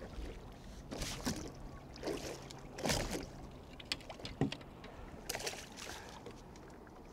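Hooked rockfish splashing at the surface beside a boat: a handful of irregular splashes over the lap of water against the hull, with a faint low steady hum under the first half.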